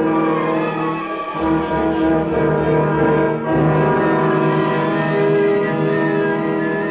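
Orchestral music with bowed strings holding sustained chords; the chord changes about a second and a half in and again about three and a half seconds in.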